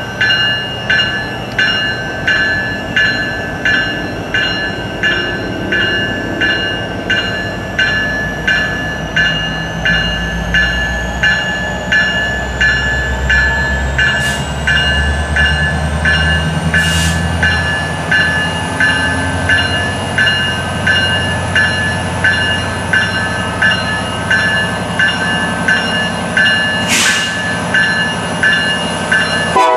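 A bell ringing steadily, a little more than once a second. Partway through, the low rumble of an approaching Norfolk Southern freight led by an EMD SD70ACE diesel locomotive builds underneath and then eases.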